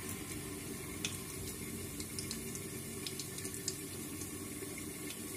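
Cinnamon, cloves and fennel seeds sizzling in hot oil in a pressure cooker, with scattered small crackles and pops over a steady low hum.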